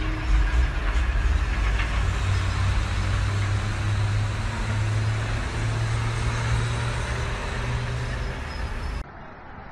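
Motor vehicle running: a loud, steady low rumble with a low engine hum and a noisy rush over it. It starts and stops abruptly at clip cuts, the stop about nine seconds in.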